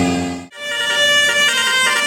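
Bus telolet air horn: a held low chord cuts off about half a second in, then a higher multi-note tune steps through several pitches.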